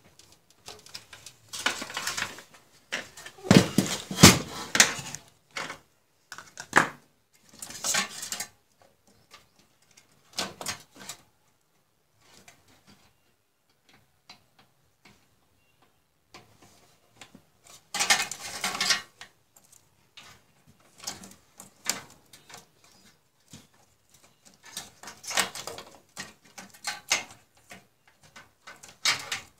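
Irregular clattering, knocking and rustling as a PC power supply is handled inside a steel computer case and its wire bundles and connectors are moved about. The loudest clatter comes a few seconds in, with shorter bursts later.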